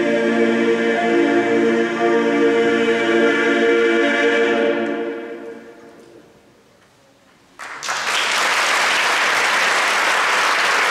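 Men's chorus holding a final sustained chord, which fades away over about two seconds. After a brief hush, audience applause breaks out suddenly about eight seconds in and continues.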